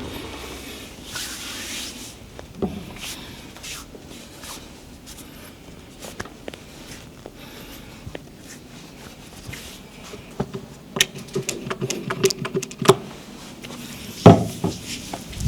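Hands rubbing and pressing on bare skin during a massage, with a run of quick clicks and taps about ten seconds in and one loud thump about a second before the end.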